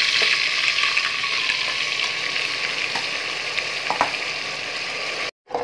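Wet masala paste of ginger-garlic, onion and ground spices sizzling in hot oil in a pressure cooker at the start of frying (bhuna), a steady sizzle that eases a little, with a couple of faint clicks, and cuts off suddenly near the end.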